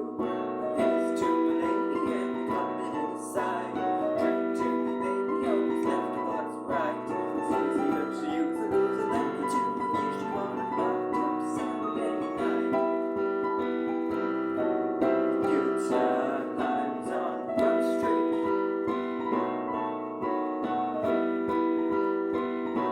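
Piano music, notes and chords played continuously at a moderate tempo.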